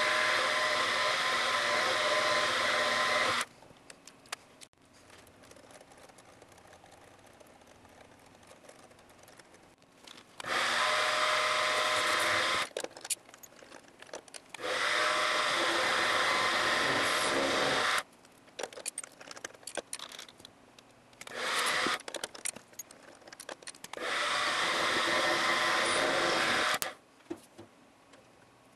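Small milling machine's spindle motor running while a twist drill bores holes in an aluminium block. It runs in five stretches of a few seconds, each cutting off abruptly. In the quiet gaps there are small clicks and taps.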